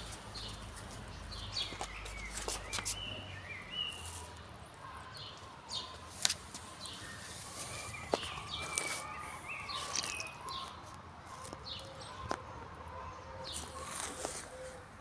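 Short bird chirps with scattered sharp clicks and rustles on dry wood chips as a naked neck rooster walks and pecks at the ground.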